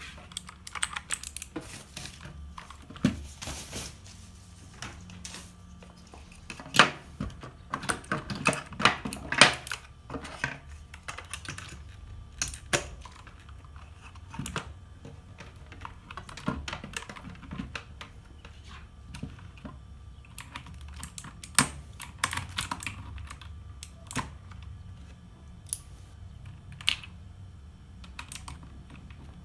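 Typing on a CK108 mechanical keyboard with clicky Outemu Blue switches: irregular key clicks, with a faster, louder flurry of keystrokes from about seven to ten seconds in.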